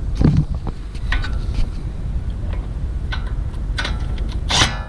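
Light clicks and clinks of a socket and extension being fitted onto a brake caliper bolt, over a steady low wind rumble on the microphone, with a short noisy burst just before the end.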